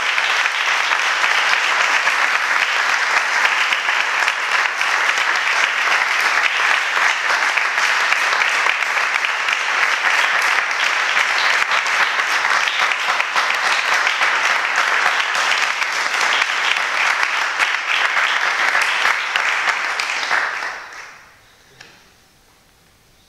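Audience applauding, a dense steady clapping that fades away quickly near the end.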